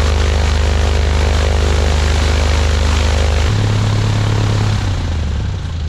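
Piper Cherokee 235's six-cylinder Lycoming O-540 engine and propeller running steadily during a ground run-up. The engine note changes about three and a half seconds in, and the sound eases off a little near the end as power comes back.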